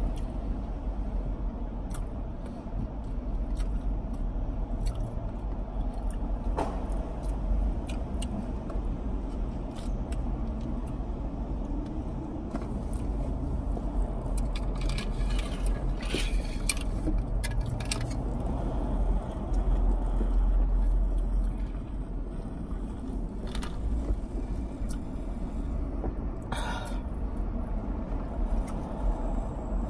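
Steady low hum inside a car's cabin under the mouth sounds of eating, chewing and smacking, with scattered clicks and rustles. A longer stretch of rustling comes about halfway through and a short burst near the end.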